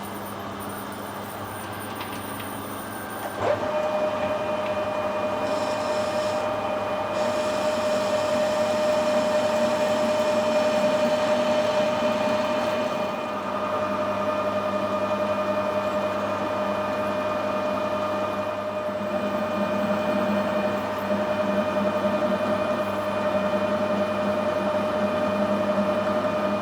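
Metal lathe starting with a click about three and a half seconds in, then running steadily with a constant tone while drilling the end of a steel bar for a 12 mm thread.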